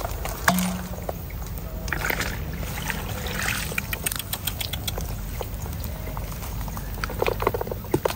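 Shallow muddy water sloshing and draining through a plastic basket as it is scooped and shaken, with small splashes and scattered clicks. Near the end, a cluster of clicks as the catch is tipped into a metal basin.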